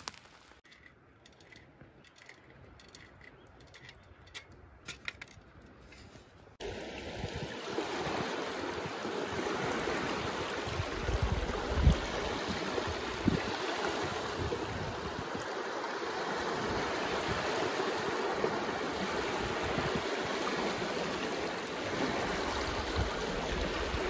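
Quiet with a few faint clicks, then, after an abrupt cut about six seconds in, a steady rush of moving water with occasional low thumps.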